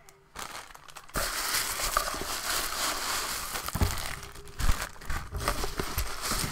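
Packing paper crinkling and cardboard rustling as a shipping box is unpacked by hand, starting about a second in, with scattered sharp crackles.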